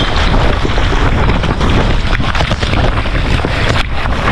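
Earthquake-triggered rockfall on a scree slope: a dense, continuous clatter of many stones knocking and tumbling, with a heavy low rumble of wind buffeting the microphone.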